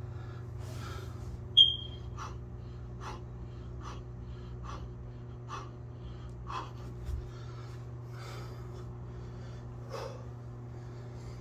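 A man breathing out hard with each of six push-ups, about one breath a second, over a steady low hum. A brief high squeak comes shortly before the breaths begin and is the loudest sound.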